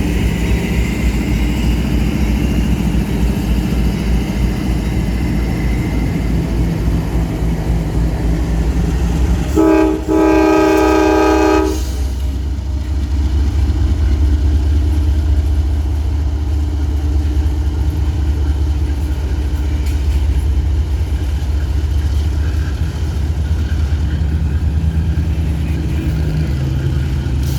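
Diesel locomotives pulling an empty grain train, with a steady low rumble. About ten seconds in the lead locomotive sounds one long blast of its multi-chime air horn, about two seconds; afterwards the diesel engines drone steadily, their pitch stepping down near the end.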